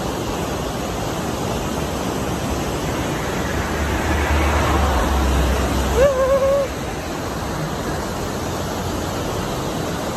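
Water rushing over a river weir in a loud, steady roar of white water. About six seconds in, a brief pitched sound rises above it.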